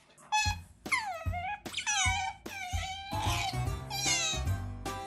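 Asian small-clawed otters giving about five high, squeaky calls in a row, each sliding down in pitch, over background music with a steady beat.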